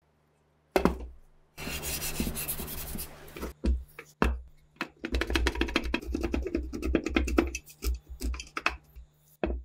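Rusty steel parts of a PPS submachine gun being handled: a few sharp metallic knocks, a hissy scraping stretch, then a run of rapid clicking and rattling, over a steady low hum.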